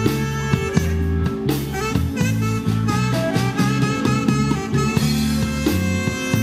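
Live blues band playing an instrumental passage on electric guitars and drum kit, with bent lead notes over a steady beat.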